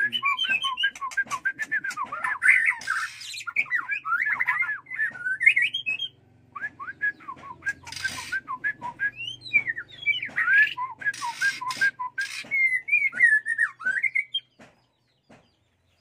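White-rumped shama (murai batu) singing: a long run of varied whistled phrases with quick rising and falling notes, mixed with a few harsh hissing notes. The song breaks briefly about six seconds in and stops about a second and a half before the end.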